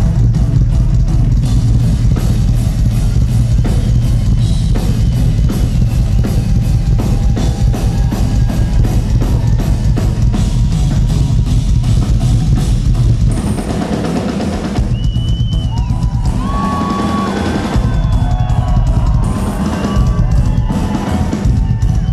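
Live rock drum solo on a large kit with two bass drums. Fast, dense bass drum strokes run under tom and cymbal hits. About 13 seconds in the bass drums thin out while the drumming goes on.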